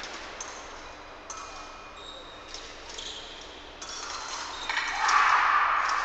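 Épée blades clinking in a few sharp metallic strikes with a brief ring, then a louder noisy burst about five seconds in as a touch is scored.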